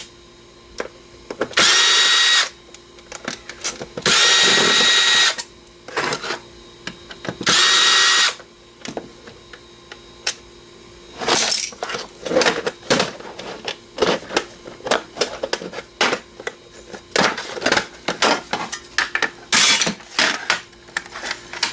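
Power drill run three times in short bursts of about a second each, unscrewing screws from a PC DVD drive's casing. Then a long run of irregular clicks, knocks and rattles of metal and plastic parts as the drive is pulled apart.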